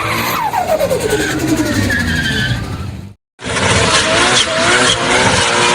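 A car driven hard: engine revving with its pitch falling away about half a second in, then, after an abrupt cut about three seconds in, steady engine noise under a wavering tyre squeal.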